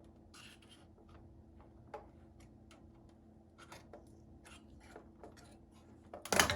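Plastic radio faceplate being pried at its retaining tabs: light clicks, taps and scrapes of the pry tool on plastic, then a loud plastic clack near the end as a tab lets go.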